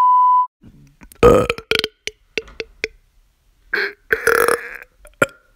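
A short, high, steady electronic beep, then a string of loud burps, some short and some drawn out, with pauses between them.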